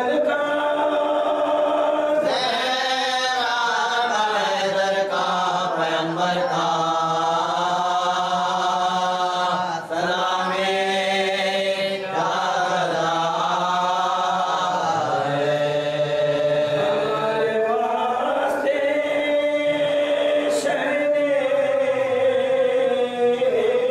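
Unaccompanied male chanting of an Urdu marsiya, a Shia mourning lament, sung in long held notes that waver and slide in pitch. The singing breaks briefly for breath about 10 and 12 seconds in.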